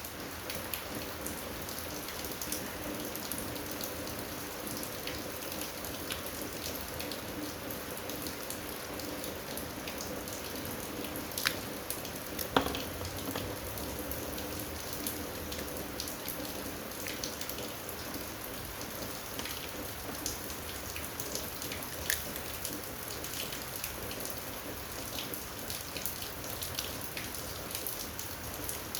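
Steady pattering of rain, sprinkled with fine ticks, under a few clicks and knocks of small parts being handled. The two sharpest knocks come about eleven and a half and twelve and a half seconds in.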